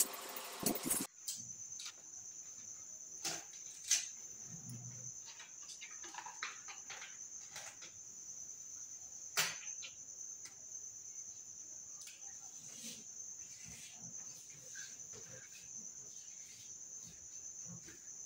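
Paper backing of a vinyl wall sticker rustling and crinkling as it is peeled off, then scattered faint taps and rubs as the sticker is pressed onto a wall by hand. Under it all, once the rustling stops about a second in, runs a steady high-pitched insect trill, like a cricket's.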